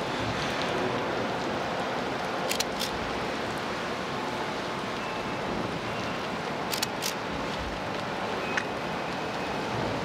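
Steady hiss of rain falling, with two pairs of sharp ticks, about two and a half and seven seconds in.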